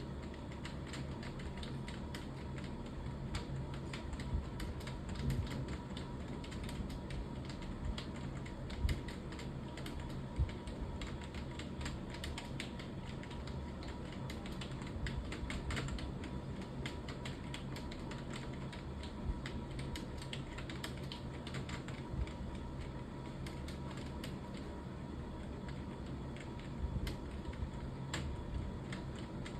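Computer keyboard being typed on continuously: a fast, uneven run of key clicks over a steady hum.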